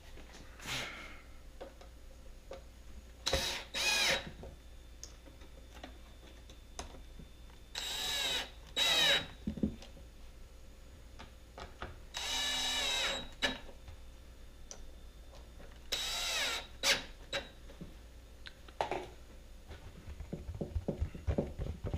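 Cordless power drill driving screws in short bursts, the motor spinning up and slowing under load each time, with one longer run in the middle.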